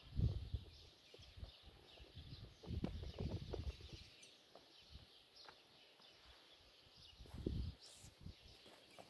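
Faint outdoor birdsong, a scatter of small high chirps, broken by brief low rumbles on the microphone just after the start, around three seconds in and again about seven seconds in.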